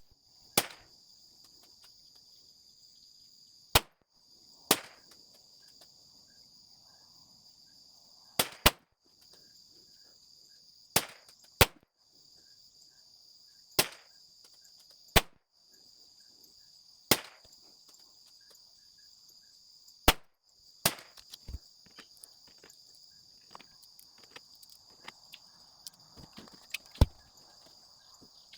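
Smith & Wesson Victory .22 LR pistol firing Eley Target rounds in slow succession: about a dozen sharp cracks, a few seconds apart and now and then in close pairs. Behind them, insects keep up a steady high-pitched buzz.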